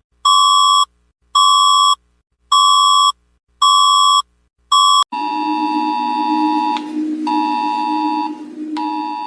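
Electronic emergency-alert alarm beeping in an even pattern, about one beep a second, five beeps. About five seconds in it switches abruptly to a different steady electronic alert tone, a chord over a low pulsing hum, broken by short gaps.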